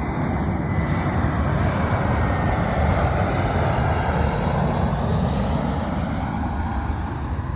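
Jet engines of a passing Airbus A321 airliner: a steady rushing noise with a deep rumble underneath, easing slightly near the end.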